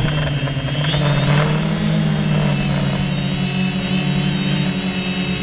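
Multirotor drone's motors and propellers humming steadily, the pitch rising about a second in as the rotors speed up, then holding, with a thin high whine above it.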